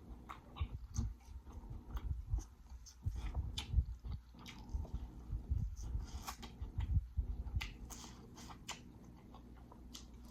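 Close-miked eating: biting and chewing corn on the cob, with wet crunching and many small mouth clicks. It thins out over the last couple of seconds.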